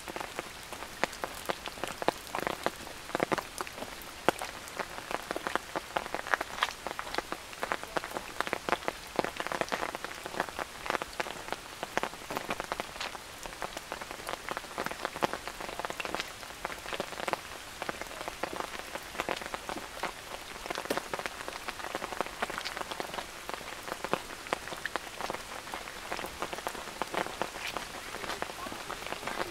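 Steady rain, with many close, sharp drops pattering irregularly over a constant hiss.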